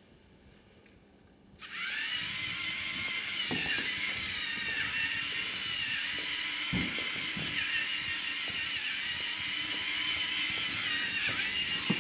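LEGO Mindstorms NXT servo motors and gear train whining as the race car drives, starting suddenly about two seconds in. The pitch wavers and dips briefly now and then, with a few knocks.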